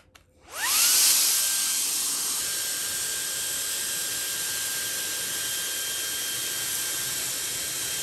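Shark cordless mini handheld vacuum switched on with a click, its motor spinning up with a rising whine within about a second, then running steadily with a high hiss and a steady whine as it is pushed over scattered rice on a carpet.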